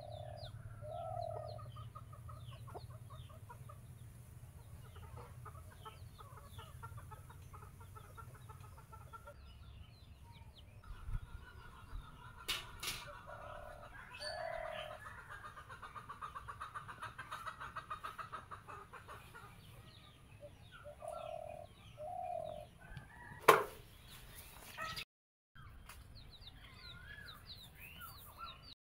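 Chickens clucking, with scattered small-bird chirps. A single sharp knock comes about 23 seconds in.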